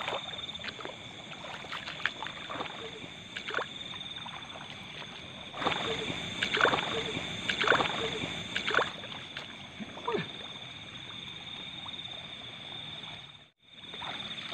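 Water splashing and sloshing as someone wades and works through water, several splashes clustered in the middle, over a steady chorus of night insects and frogs. The sound drops out completely for a moment near the end.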